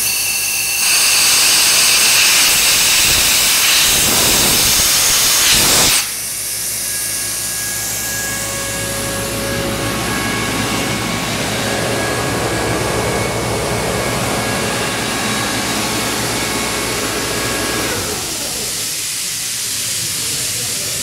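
Compressed air blasting out of the opened drain valve on the air receiver tank of an Atlas Copco GX11 rotary screw compressor, blowing down a little water: a loud hiss from about a second in that cuts off suddenly about five seconds later as the valve closes. The rotary screw compressor then runs steadily, its sound dropping a little near the end.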